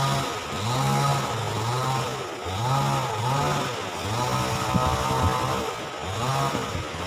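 Small motorcycle engine revving up and easing off over and over, about once a second, as it is ridden over rough ground.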